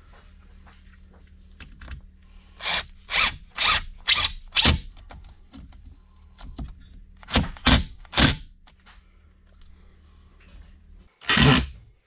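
Ridgid cordless drill driving screws into a plywood shelf in short trigger bursts: five quick bursts about half a second apart, then three more a few seconds later, and a longer, louder run just before the end.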